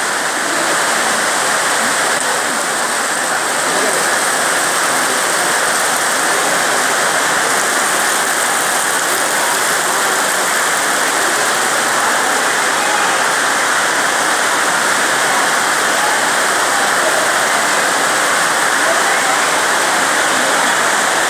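Heavy rain pouring down: a loud, steady hiss of falling water with no break.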